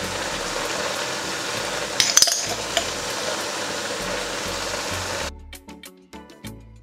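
Shredded cabbage with tomatoes and peppers sizzling as it fries in a pan, with a couple of clinks about two seconds in. About five seconds in the sizzling cuts off and background music takes over.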